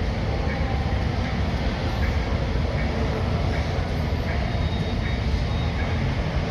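Steady low rumble of a taxiing airliner's jet engines, with no change in pitch.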